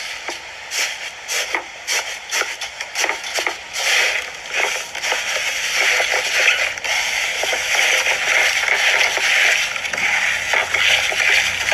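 Slime being squeezed and handled, giving a dense, irregular run of crackles and clicks.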